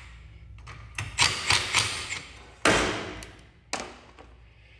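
A handful of sharp knocks and clicks from a wrench working the bolts on a garage door torsion spring's cable drum to loosen them, the loudest about two and a half seconds in.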